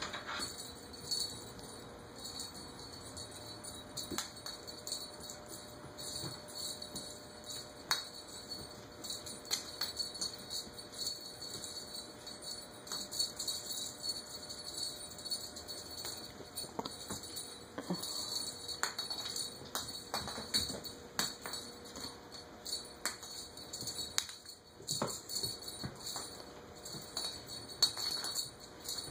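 Small bells jingling in irregular bursts, with scattered light clicks.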